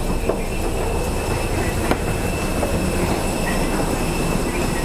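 Steady whine and rumble of a Peach Aviation jet airliner's turbines running at the gate, with a few light knocks of footsteps on the boarding stairs.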